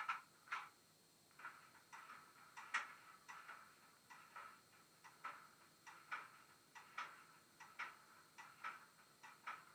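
Faint Class 08 diesel shunter sound from a model locomotive's DCC sound decoder, played through its small speaker: a run of short, uneven clicking puffs, about two a second, with no deep engine note.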